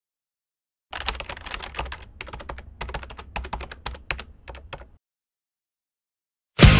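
Computer keyboard typing: a fast, uneven run of key clicks for about four seconds, then silence. Rock music cuts in just before the end.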